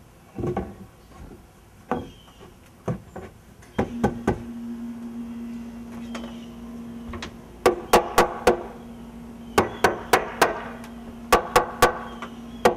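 Hammer striking a doubled 2x10 wooden header to tap it into place in the wall framing: a few scattered knocks, then quick runs of four or five sharp strikes. A steady low hum runs underneath from about four seconds in.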